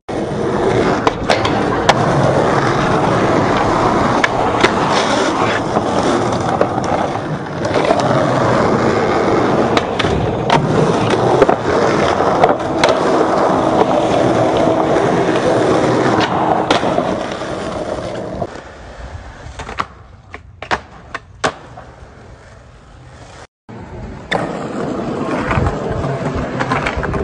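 Skateboard wheels rolling loudly over concrete and paving, with sharp clacks of the board hitting the ground scattered through. Most of the way through the rolling drops away, leaving a few lone clacks, then steady rolling starts again near the end.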